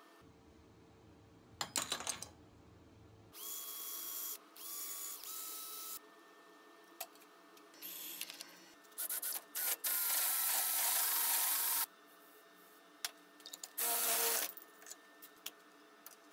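Short bursts of workshop tool noise split by cuts. The longest and loudest, from about halfway through, is a drill press bit cutting into a steel plate with a steady grinding whir. Before it come metallic clicks and shorter bursts of a machine running, and near the end another brief burst.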